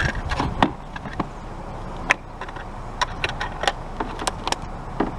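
Things being handled and shifted about in a hard plastic tub: irregular clicks and knocks of plastic and boards against each other and the tub's sides, over a steady low rumble.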